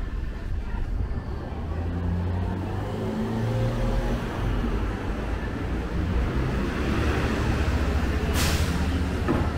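A large motor vehicle's engine running close by on a city street, its low hum growing louder after a couple of seconds. A short, sharp hiss comes near the end.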